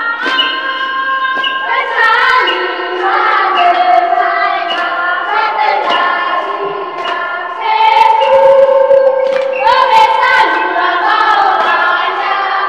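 A choir of voices singing together in long held notes, the notes changing every second or two.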